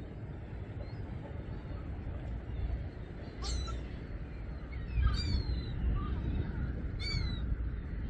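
Gulls calling: three short calls with falling, curved notes about two seconds apart, over a steady low rumble of wind and water.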